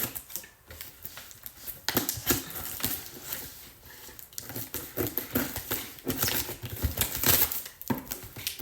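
Scissors cutting open a taped cardboard shipping box: a run of irregular snips, clicks and scraping, with some rustling of the box.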